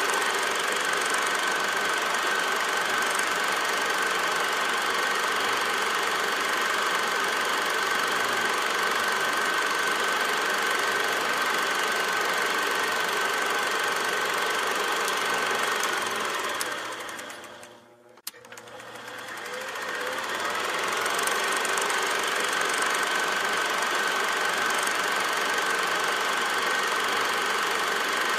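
A steady mechanical clatter with a constant high whine, like a small machine running; it fades away about two-thirds of the way through and fades back up a few seconds later.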